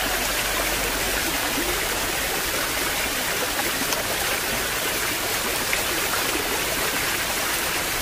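Waterfall cascading over rocks: a steady, even rush of water with no rise or fall.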